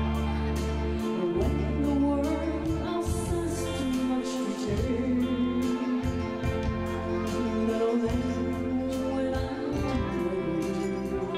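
A song played for a first dance: a singing voice over instruments with a steady beat.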